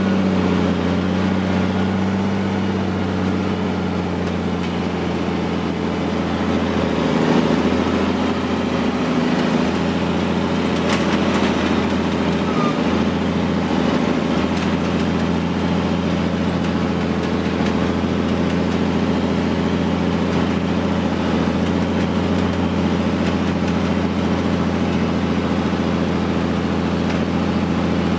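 Timberjack 450C cable skidder's diesel engine running steadily, heard from inside the operator's cab. There is a short knock about eleven seconds in.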